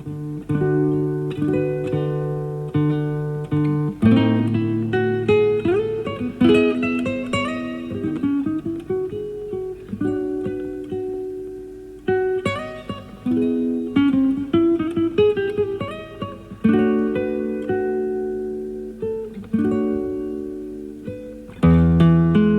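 Solo nylon-string classical guitar played live: a plucked melody over bass notes and chords, each note ringing and dying away, with a full low chord struck near the end. It comes from an FM radio broadcast recorded on cassette tape.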